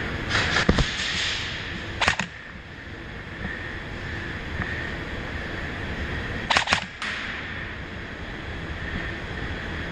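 M4-style airsoft rifle firing three short bursts of a few shots each: one about half a second in, one about two seconds in, and one about six and a half seconds in.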